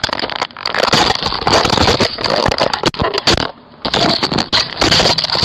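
Loud, close-up scraping and crackling on a Ring doorbell camera's own microphone as the camera is handled roughly and broken, with a short break about three and a half seconds in.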